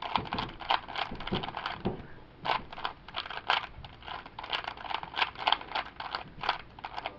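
A 3x3 Rubik's cube being turned rapidly during a solve: its plastic layers clack in quick runs of several clicks a second, with a short pause about two seconds in.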